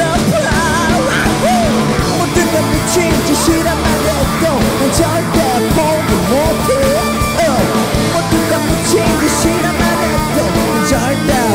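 Rock band playing live: electric guitars, bass and drums, with a lead line bending up and down in pitch over a steady loud backing.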